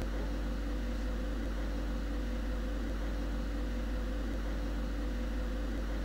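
Steady low electrical hum with hiss and a constant higher tone that never changes: the recording's background noise.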